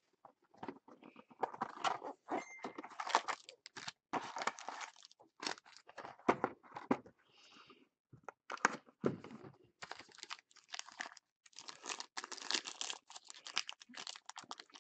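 2016 Limited Football trading card boxes being handled and opened by hand: irregular crinkling, tearing and cardboard taps, with a few brief pauses.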